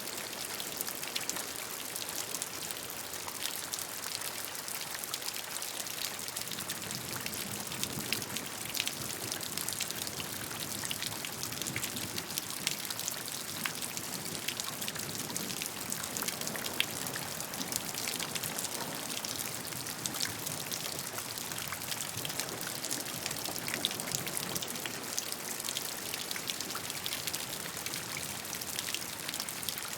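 Steady rain falling, with many fine drop patters on a surface.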